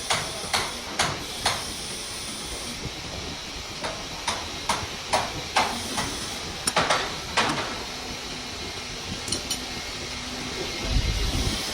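Sharp metallic taps and knocks of metal striking metal, four in quick succession and then a second run a few seconds later, over a steady hiss. Near the end there is a dull low thud.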